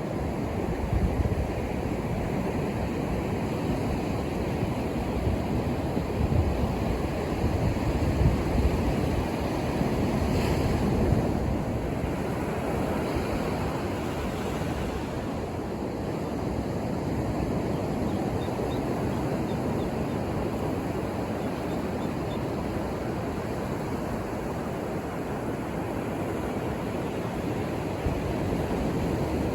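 Ocean surf breaking on a beach: a steady wash of waves that swells and eases gently, with wind on the microphone.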